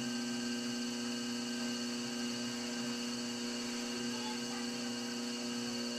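Electric potter's wheel running, giving a steady electrical hum that holds unchanged throughout.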